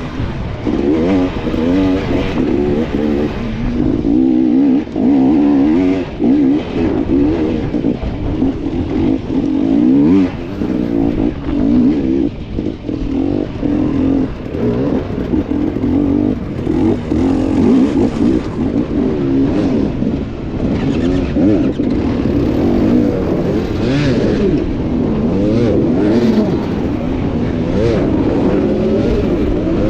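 Two-stroke dirt bike engine revving up and down again and again as the throttle is worked hard.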